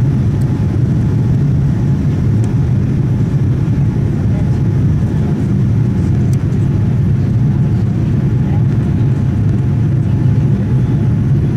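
Steady, loud low rumble of a Boeing 787-9 airliner's cabin during the climb after takeoff: engine and airflow noise heard from a window seat, with a faint steady hum above it.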